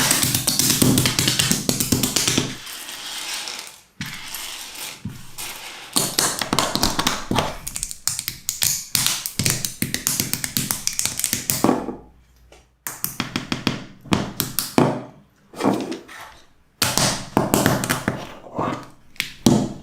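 Plastic construction bricks clicking and snapping together: quick runs of small taps and clicks in bursts, with two short pauses in the second half.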